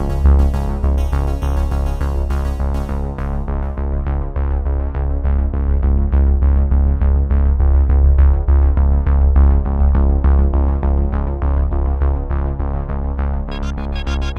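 Background music: a synthesizer and keyboard track with a strong steady bass and evenly repeated notes. Brighter high notes come in near the end.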